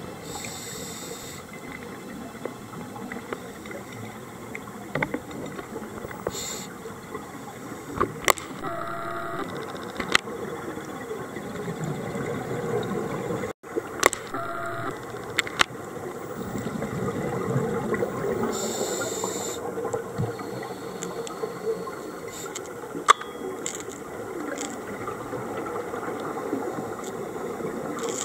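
Underwater sound of scuba breathing through a regulator: a steady rush of exhaled bubbles with a short hiss of inhalation every few seconds, and scattered sharp clicks.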